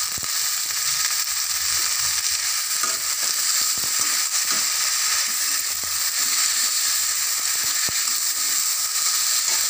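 Small onions, tomatoes, garlic and mint sizzling steadily in oil in a kadai, stirred with a spatula that now and then scrapes the pan.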